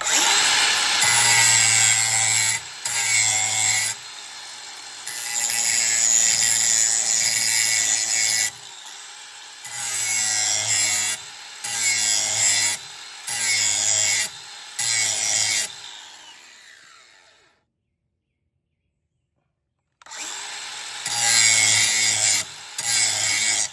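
An electric grinder's wheel grinding the steel edge of a John Deere zero-turn mower blade. It goes in repeated passes of one to three seconds, with the motor humming more quietly between them. The sound dies away about 16 seconds in, then two more short passes start about 21 seconds in.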